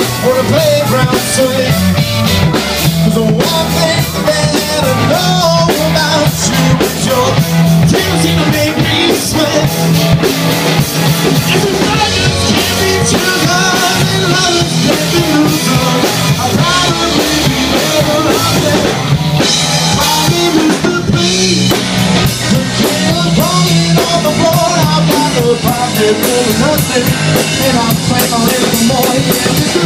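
Live rock band playing loud and without a break: two electric guitars, an electric bass and a drum kit.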